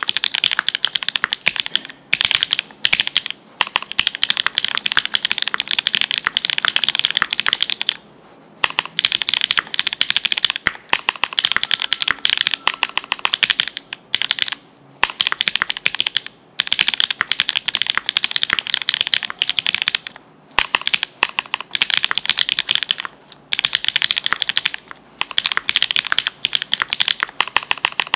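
Fast, continuous typing on a GEONLAB F1-8K mechanical keyboard with lubed linear switches made from NovelKeys Cream stems in Cherry black nylon housings, on an FR4 plate under GMK Pulse keycaps: a dense run of key strikes bottoming out, broken by a few brief pauses.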